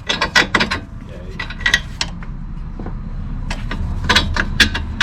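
Metallic clicks and clinks of hand tools on the front strut bolts as they are removed, coming in two irregular clusters over a low steady hum.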